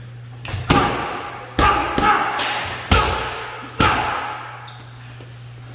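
Boxing gloves smacking into punch mitts and a body shield: about half a dozen sharp punches in quick combinations, each ringing out in a large echoing room, stopping about four seconds in.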